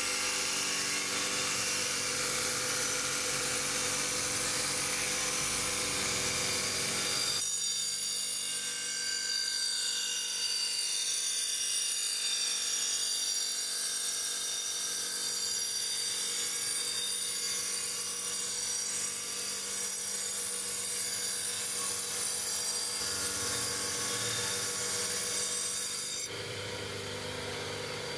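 Bench grinder motor running with a wire wheel brush scrubbing rust off a steel cleaver blade pressed against it: a steady hiss of wire on metal over the motor's hum. The sound changes abruptly about a quarter of the way in and again near the end.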